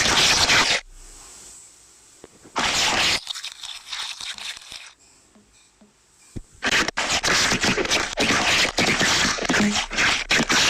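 Slime being squished and worked by hand, giving crunchy, crackling pops: a short burst at the start, another about three seconds in, then a dense run of rapid crackles over the last four seconds.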